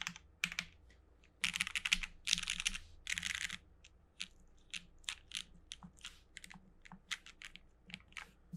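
Typing on a Bolsa Supply Midway60 custom mechanical keyboard with lubed, filmed linear Cherry MX Black switches, an aluminium flex-cut plate and GMK ABS keycaps. A few single keystrokes come first, then three quick runs of rapid typing about one and a half to three and a half seconds in, then slower, scattered keystrokes.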